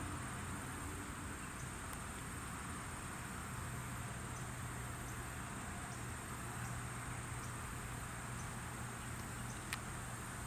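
Steady insect chorus, a continuous high trill, over a low steady hum, with a couple of faint clicks near the end.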